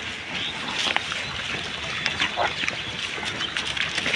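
Pigs rooting through a heap of plastic rubbish and dry leaves, their snouts rustling and crinkling the trash in irregular crackles, with pig grunts among it.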